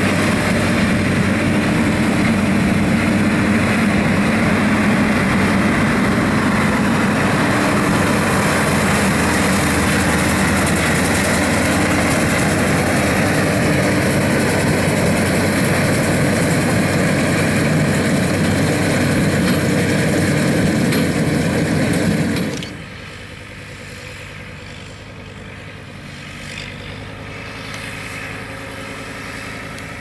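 Versatile 305 tractor's engine pulling a Case IH 8575 big square baler in work: a loud, steady drone of engine and baler machinery. About three quarters of the way through it cuts off abruptly to a much quieter steady engine sound, a Kubota loader tractor handling straw bales.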